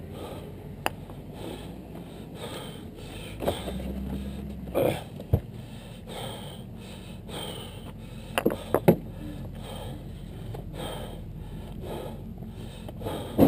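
An engine running steadily at low speed, with scattered knocks and clanks over it.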